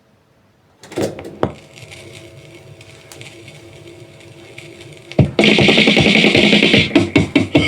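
Record played on a Minsk-58 valve radiola: two thumps about a second in, then a few seconds of crackle and clicks over a steady hum, then music starts loud about five seconds in.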